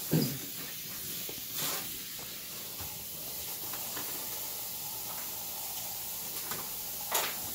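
Steady hiss of water running from a kitchen tap, with banana leaves rustling briefly twice as they are shifted in an aluminium pot.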